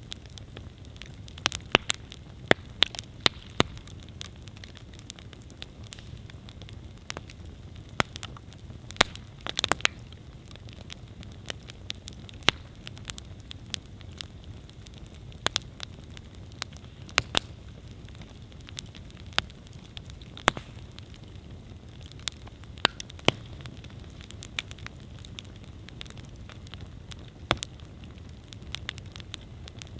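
Wood campfire burning with a steady low rumble and irregular sharp crackles and pops, sometimes in quick clusters.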